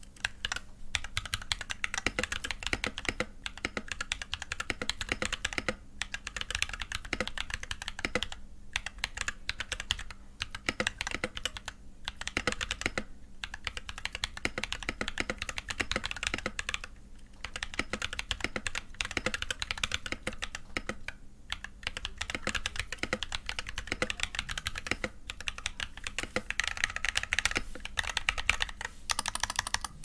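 Typing on an NK65 Milkshake Edition 65% mechanical keyboard fitted with Ethereal Panda tactile switches lubed with Tribosys 3203: a fast stream of keystroke clacks, broken by short pauses every few seconds.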